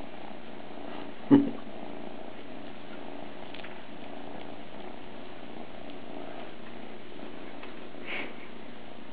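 Two-month-old Maine Coon kitten purring steadily while being petted, with one sharp knock about a second in.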